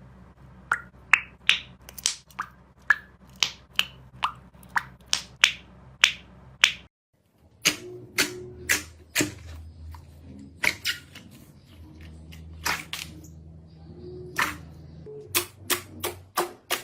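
Slime being pressed and poked, giving a run of sharp pops and clicks about two a second. Shortly before the middle the sound breaks off and a second run of pops begins, with a low hum underneath.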